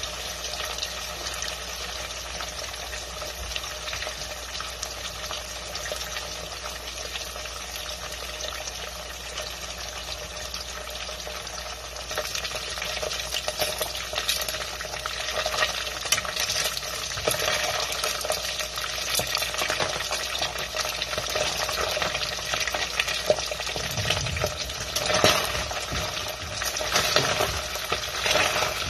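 Salmon ends frying in oil in a pot, a steady sizzle with crackling that grows livelier partway through. Near the end a spatula scrapes and knocks against the pot as the pieces are turned.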